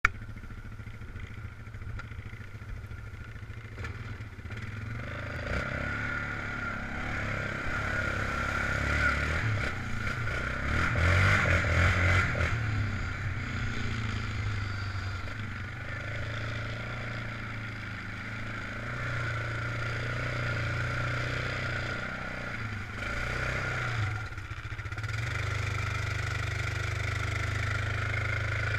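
Yamaha sport ATV's engine running under way, revving up and easing off as it is ridden. It is loudest from about eight to twelve seconds in, and dips briefly about twenty-four seconds in.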